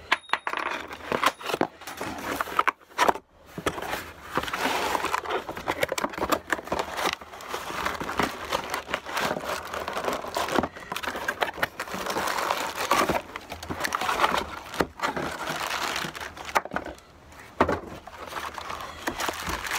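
Cardboard box flaps and plastic packaging bags rustling and crinkling as a boxed power tool is unpacked by hand, on and off with a few short pauses.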